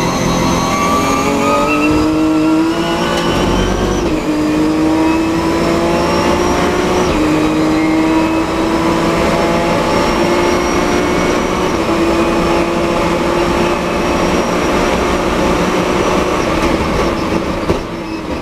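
Nissan 370Z race car's V6 engine, heard from inside the cockpit, accelerating hard out of a corner with its pitch climbing, upshifting about four and seven seconds in, then pulling steadily at high speed. Near the end the note drops as the driver lifts off to brake.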